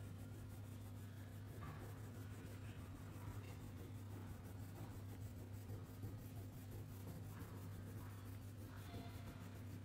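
Faint scratching of a colouring tool stroking over paper, in short scattered strokes that come more often near the end, over a steady low hum.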